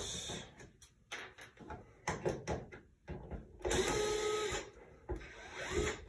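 Cordless electric screwdriver motor running for about a second as it backs screws out, then briefly again near the end, with small clicks and scrapes of handling before it.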